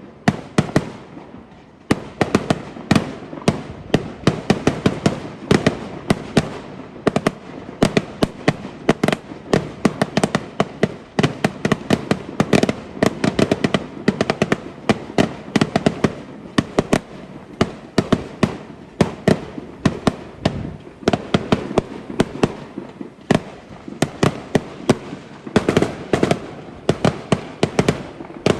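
Fireworks going off in rapid succession: a dense string of sharp bangs and crackles, several a second, with a brief lull about a second in.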